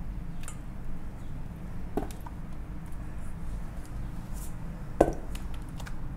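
Wet squelching and small clicks as a floured chicken drumstick is worked by hand in a stainless steel bowl of beaten egg, with two sharper knocks about two and five seconds in, the second the loudest.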